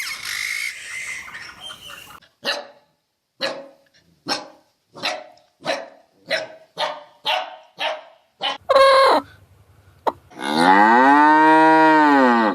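A cow mooing in one long call that rises and then falls in pitch, near the end. Before it comes a quick run of about a dozen short animal calls and one louder brief call.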